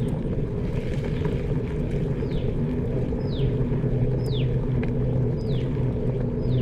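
A steady low engine hum from a motor vehicle running close by. Over it, from about two seconds in, a bird repeats a short, falling whistle about once a second.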